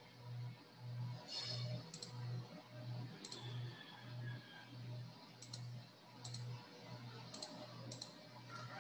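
Computer mouse clicking several times at irregular intervals, faint, over a low hum that pulses evenly.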